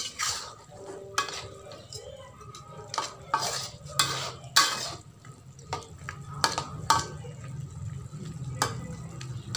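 Perforated metal spatula stirring diced chicken through teriyaki sauce in a metal wok, with irregular scrapes and knocks against the pan.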